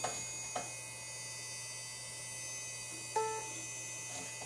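Steady hum and whine of a running Power Macintosh 8100, its fan and hard drive, with a couple of faint clicks in the first second. A little over three seconds in, a short pitched Mac OS alert beep sounds as a warning dialog comes up.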